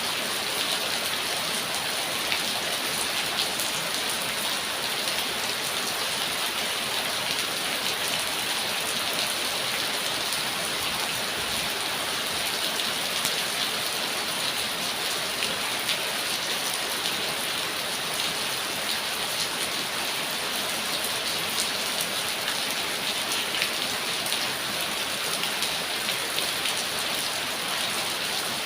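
Steady rain falling, a dense even hiss with many fine drop ticks and no change in intensity.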